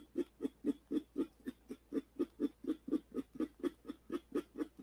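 Rapid, regular clicking of a vape box mod's fire button, about five clicks a second, as it is pulsed to dry-fire and heat a freshly built pair of coils at 30 W.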